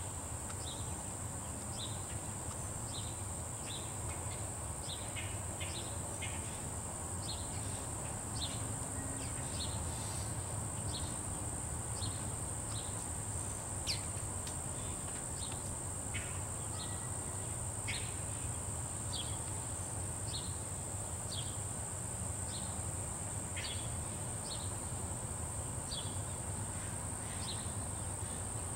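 Outdoor insects in a steady, high-pitched drone, with short chirps about once a second over a low, even rumble.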